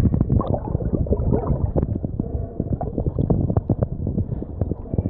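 Muffled underwater gurgling and bubbling with many small clicks and crackles, heard through a camera held under water while a snorkeler dives.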